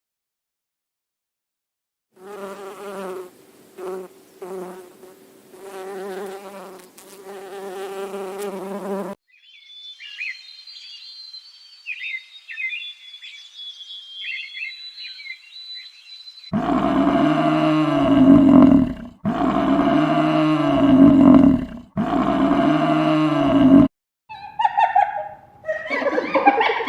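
A series of separate animal sounds. First an insect buzzing for about seven seconds, then high-pitched chirping, then three loud long calls that rise and fall in pitch, and short calls near the end.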